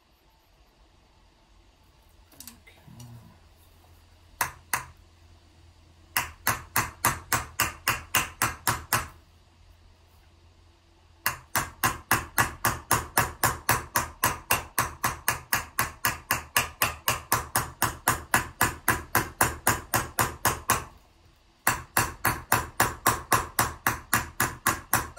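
Round-faced Huang Embossing Hammer striking a copper vessel held on a leather pad, in quick even blows about four a second. The blows start about six seconds in and come in three runs with short pauses between, hammer chasing a concave trench between two drawn lines.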